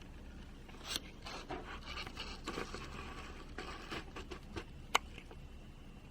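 Faint handling noises of small hard parts: rubbing and scraping, with a sharp click about a second in and a louder one just before five seconds.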